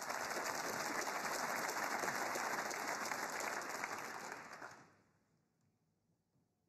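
Audience applauding in a snooker arena, a steady patter of many hands clapping that dies away about five seconds in.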